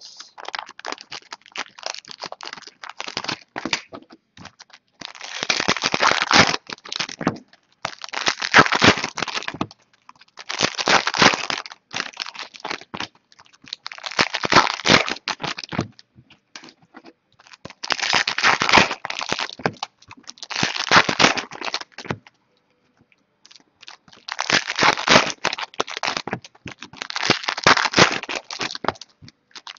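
Foil wrappers of Topps Platinum trading-card packs crinkling and tearing in the hands as the packs are opened, in repeated bursts of a second or two with short pauses between.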